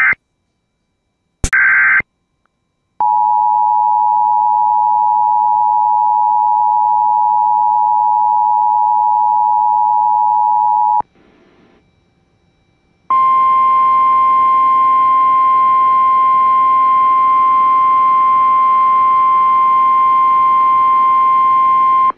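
Emergency Alert System tones. Two short bursts of SAME digital data tones come in the first two seconds. Then the EAS two-tone attention signal holds steady for about eight seconds, and after a brief near-silent gap the NOAA Weather Radio 1050 Hz warning alarm tone, a single steady tone, sounds for about nine seconds to announce a warning.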